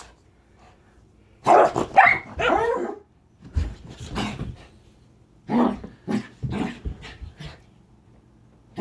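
Rat terrier 'talking': three runs of short barks and grumbling, growl-like vocalizing, with short pauses between them.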